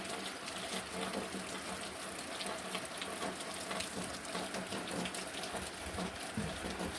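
Steady rain falling, a constant hiss of water flecked with the small ticks of individual drops striking.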